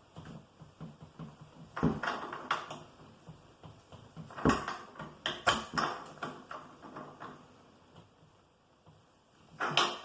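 Metal clicks and clanks of a spanner turning a bicycle crank puller as it pushes the crank arm off the spindle, with a few sharp knocks about two seconds in and around the middle.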